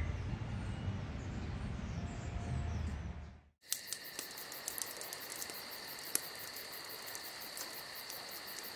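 A low steady rumble with faint chirps, then a sudden cut about three and a half seconds in to insects trilling steadily at a high pitch, with scattered sharp clicks.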